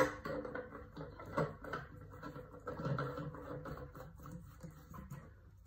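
Hands fitting a light bulb into a table lamp's holder inside the shade: irregular rubbing, scraping and small clicks as the bulb and shade are handled, with a sharp click right at the start.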